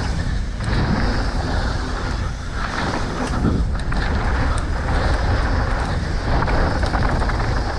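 Mountain bike descending a dirt trail: wind rushing over the riding camera's microphone, with tyre noise and scattered clicks and rattles from the bike.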